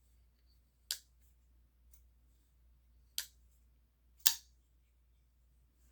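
Tempest Knives liner-lock folding knife being flicked open and shut by hand: three sharp metallic clicks as the D2 blade snaps into place, the last the loudest, with a faint tick between the first two.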